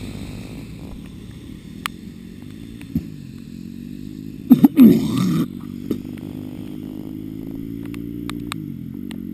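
Dirt bike engine idling steadily, with a short loud burst about halfway through and a couple of sharp clicks before it.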